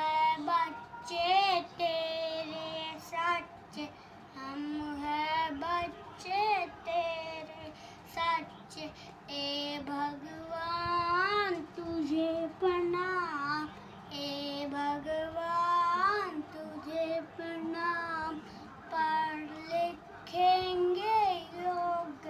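A young boy singing solo and unaccompanied, with long held notes that bend up and down in pitch.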